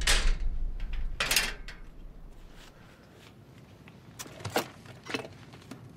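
A door or sliding panel being moved, with two short rushes of noise about a second apart, then scattered light clicks and knocks as someone rummages for something.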